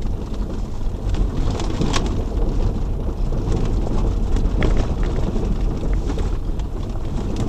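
Vehicle driving on a gravel road: a steady low rumble of engine and tyres, with scattered clicks and crunches from the gravel.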